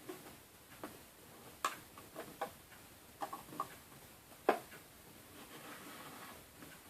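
Light, irregular clicks and taps of a hook and rubber bands against the pins of a plastic Wonder Loom, as bands are lifted forward over the pins one after another; the sharpest click comes about four and a half seconds in.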